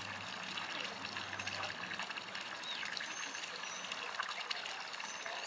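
Marina ambience: water trickling and lapping around the hulls, with scattered small ticks and a few short bird chirps. A low steady hum stops about two seconds in.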